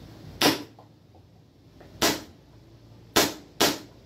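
WE Baby Hi Capa 3.8 gas blowback airsoft pistol firing four sharp single shots at uneven intervals, the last two close together. It wears a mock silencer that does not quieten the shots, because the blowback action makes much of the noise.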